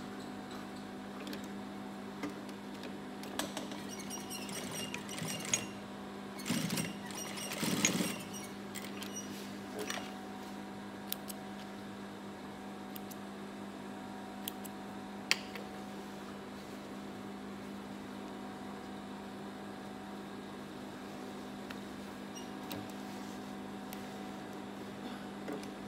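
Gemsy industrial sewing machine's motor humming steadily while switched on, with clicks and rustling from the jeans being handled in the first ten seconds and a single sharp click about fifteen seconds in.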